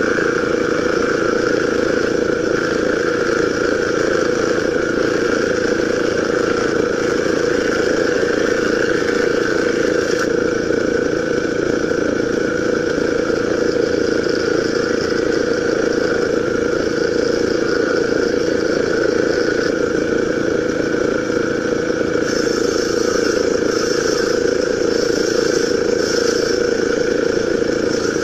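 Woodworking planer machine running steadily while squaring door stock, a constant machine drone. A higher hiss joins in during the last several seconds.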